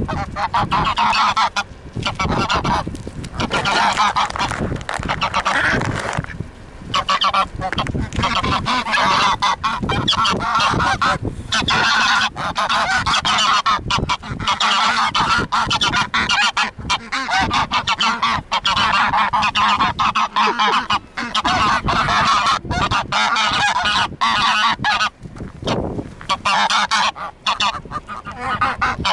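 A flock of domestic geese honking loudly, many calls overlapping nearly without pause, as they crowd in begging for food.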